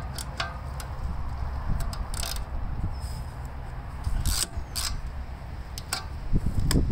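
Wrench working the metal fuel fitting at the sediment bowl under a gas tank, unscrewing it: a few sharp, light metal clicks scattered through, over a steady low rumble.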